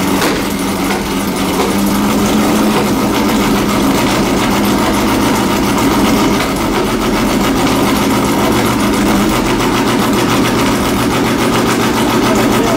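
Lola race car's engine idling steadily, the note turning less even in the last few seconds.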